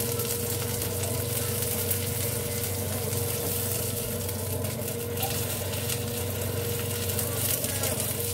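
Breaded chicken cutlet sizzling steadily as it shallow-fries in oil in a frying pan, with a spatula scraping and turning it about halfway through.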